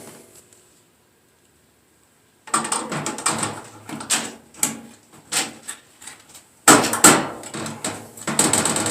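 Irregular knocks and clatters from hand work on a small metal breaker box, starting after about two seconds of dead silence.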